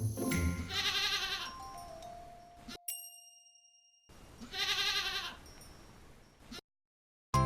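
Goat bleating twice, each a wavering call about a second long, with a single chime ringing out between the two bleats.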